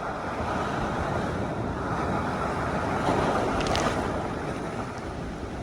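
Ocean surf: the rush of a breaking wave swelling to a peak about three seconds in, then easing, with wind buffeting the microphone.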